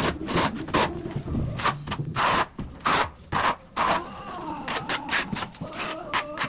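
Notched trowel scraping through tile adhesive in quick strokes, two or three a second, combing it across the back of a large ceramic tile. The strokes turn weaker and sparser about four seconds in.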